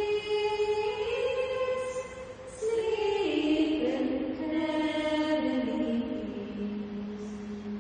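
Slow singing of a Christmas song: the melody moves down in steps and settles on a long held low note near the end.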